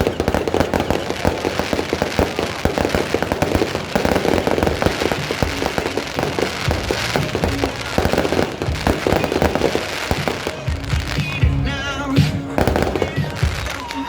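Aerial fireworks going off in a dense, rapid stream of bangs and crackles. After about ten seconds the explosions thin out, and music comes through.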